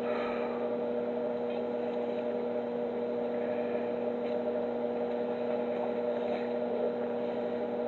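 Miller Thunderbolt XL transformer stick welder humming steadily under load, with a hiss from the arc as a 3/32 in rod burns.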